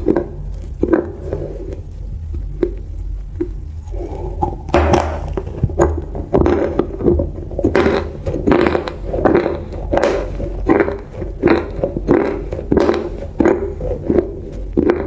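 Close-miked chewing of crunchy food: a steady run of sharp crunches and crackles, one or two a second, busier from about four seconds in.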